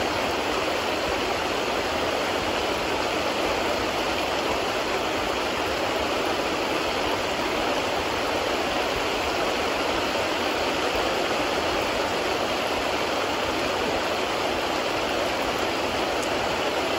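Steady rushing of a swollen, fast-flowing river, an even noise with no breaks.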